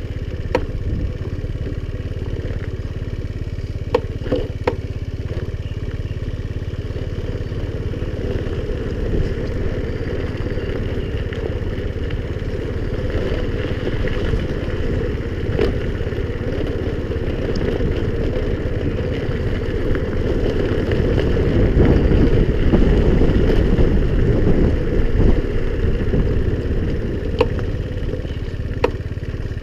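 Honda scooter's small engine running while riding on a rough unsealed road, with scattered knocks and rattles. It grows louder for a few seconds about two-thirds of the way through.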